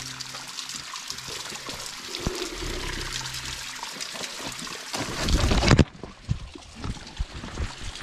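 Water trickling and splashing over rocks in a small creek and waterfall. About five seconds in, a loud low rumble lasts under a second and cuts off sharply, followed by a few knocks.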